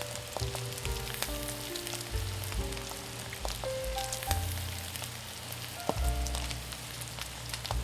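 Food sizzling on a hot teppan iron plate, a steady crackling hiss broken by occasional sharp clicks. Soft background music with held melody notes and a pulsing bass plays underneath.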